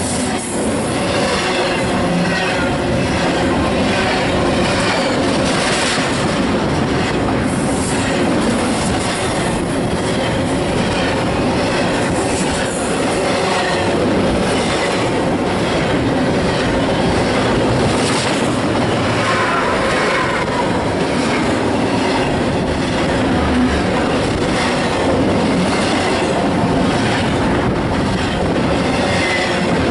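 Double-stack intermodal freight train of container well cars rolling past close by: a steady rumble of steel wheels on rail, with repeated clicks as the wheels cross rail joints and a thin wheel squeal for a moment about two-thirds of the way through.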